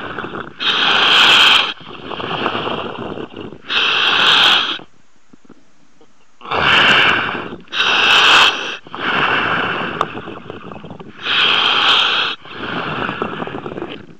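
A commercial diver breathing through a surface-supplied diving helmet, heard over the dive comms. Loud hissing breaths of about a second each alternate with softer ones, with a pause of about a second and a half near the middle.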